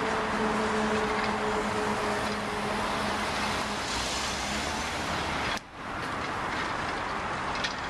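Street traffic noise: a steady wash of passing cars, with an engine hum that fades out by about four seconds in. The sound cuts out for a moment about two-thirds of the way through.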